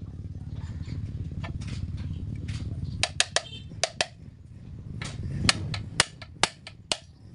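Hammer striking a punch to peen over the rivets that fasten new lining to a truck drum-brake shoe, metal on metal. It comes as a run of sharp, uneven strikes: a cluster of about five around three to four seconds in, then about four more near the end.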